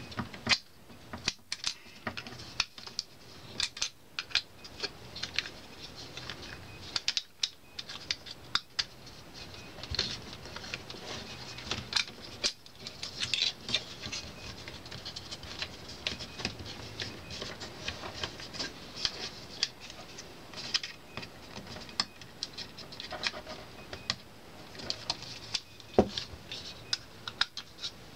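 Irregular small clicks and taps of metal and plastic parts being handled and fitted in a Technics SL-1900 turntable's tonearm base.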